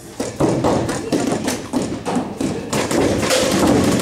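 Paintball markers firing reusable rubber reballs in rapid volleys, the balls thudding and tapping against bunkers and netting; after a brief lull at the start, the shots and hits come thick and fast.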